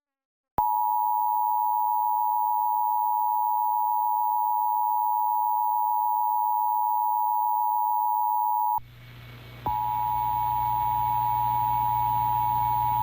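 Emergency Alert System attention signal: the steady two-note 853 and 960 Hz tone, held for about eight seconds. It cuts out for just under a second, leaving background hum and hiss, then starts again over a faint hum.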